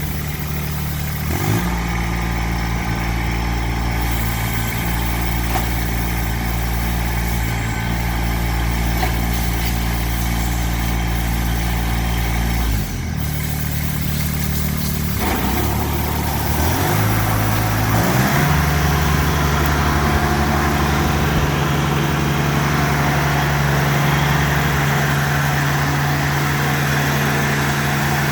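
Kubota BX2370 sub-compact tractor's three-cylinder diesel engine running for a test of its loader and grapple. The engine speed changes in steps: it rises a little about a second and a half in, drops around 13 seconds, shifts again between about 15 and 18 seconds, then runs steadily higher and louder.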